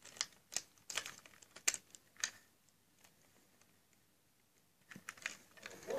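Plastic Lego pieces of a toy train wagon clicking and knocking as it is handled in the hands: several sharp clicks in the first two seconds or so, a quiet stretch, then more clicking near the end.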